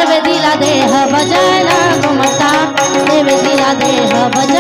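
Marathi kirtan music: a woman singing a devotional melody into a microphone, over a steady held instrumental tone and regular drum strokes.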